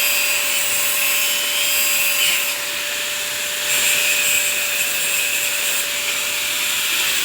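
A motor-driven machine running steadily, a constant whine over a hiss. Near the end the whine starts to fall in pitch as the motor winds down.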